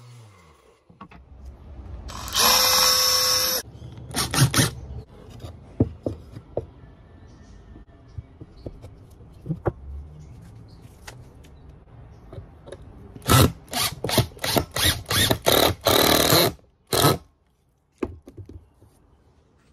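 Makita cordless drill driving screws into pine boards: one steady run of about a second, two short bursts soon after, then a quick string of short trigger pulses toward the end, with light knocks of wood being handled in between.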